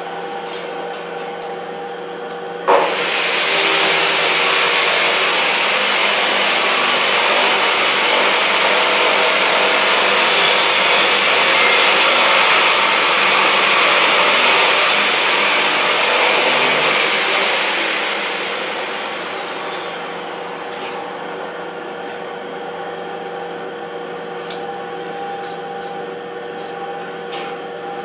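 An electric motor starts abruptly a few seconds in with a loud rushing whine, runs steadily for about fifteen seconds, then winds down with a falling whine. A steady low hum runs underneath.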